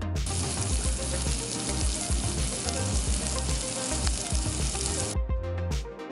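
Food sizzling in a hot frying pan: a dense hiss that begins just after the start and cuts off suddenly about five seconds in, over background music with a steady beat.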